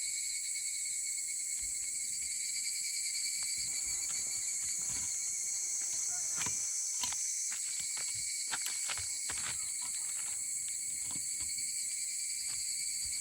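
A steady chorus of insects, shrill and high, with scattered light clicks and knocks from handling nearby, most of them in the middle part.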